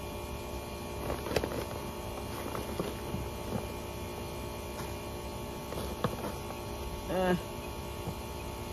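A steady hum made of several fixed tones, with a few faint scrapes and taps of hands digging through potting soil in a grow bag. A short voiced sound comes about seven seconds in.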